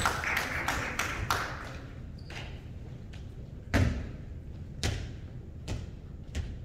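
Volleyball being hit and played during a rally in a gym, a series of separate thuds and smacks with the loudest about four seconds in.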